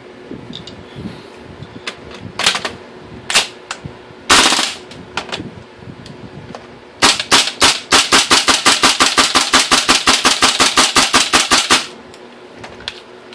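Gas blowback airsoft rifle (an LM4) firing: a few single shots, a short burst about four seconds in, then a sustained full-auto string of about eight shots a second for nearly five seconds. It cycles without jamming, as the gun is test-fired after its out-of-spec nozzle was replaced.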